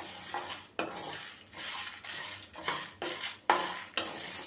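Steel spoon stirring dry lentils, seeds and dried red chillies roasting without oil in a kadai: repeated scraping strokes with the grains rattling against the pan, a little more than one stroke a second.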